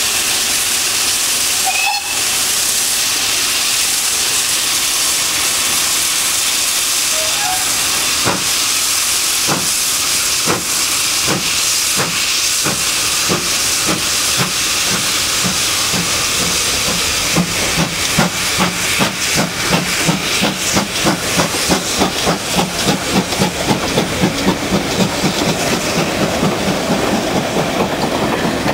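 Steam locomotive starting a train: a steady loud hiss of steam, then exhaust chuffs begin about eight seconds in, slow at first and quickening to a rapid, regular beat as it pulls away.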